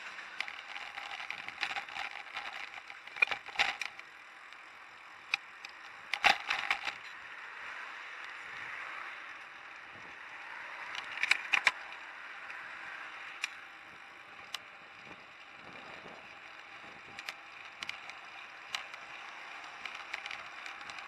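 Bicycle ridden along a paved city street: a steady rush of tyre and wind noise, broken by sharp rattles and knocks from the bike and its handlebar camera mount going over bumps. The knocks come in clusters about 3, 6 and 11 seconds in, with single ticks after that.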